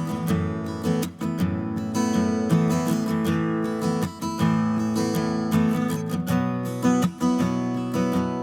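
Music led by a strummed acoustic guitar, with a steady strumming rhythm.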